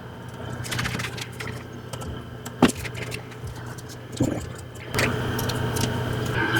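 Handling sounds of a workpiece being moved about on the bench: scattered light knocks and clicks, with a sharp knock about two and a half seconds in and another about four seconds in, over a steady low hum.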